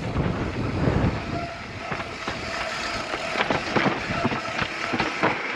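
Mountain bike (a 2017 Specialized Enduro 29er) rolling fast down a dirt trail: tyre noise over dirt and rocks, with the bike rattling and knocking over bumps. A faint steady hum runs through the middle.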